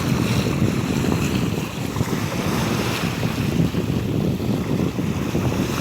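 Wind buffeting the microphone as a loud, choppy low rumble, over the wash of Sea of Azov waves.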